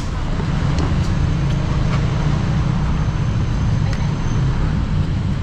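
Steady low rumble of road traffic, with faint voices and a few light clicks.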